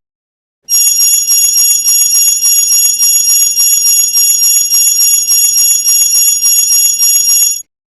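A small metal bell rung in a fast, continuous trill of repeated strikes for about seven seconds, beginning just under a second in. Its ring is bright and high-pitched.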